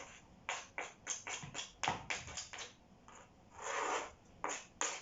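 Kitchen knife cutting sorrel leaves into strips on a cutting board: a run of short, sharp chops at an uneven pace, with one longer scrape a little past the middle.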